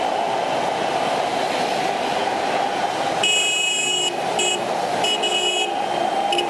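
Heavy traffic passing on a wet, slushy road, a steady rush of tyres and engines. From about three seconds in, car horns sound in several blasts, one longer one followed by shorter ones.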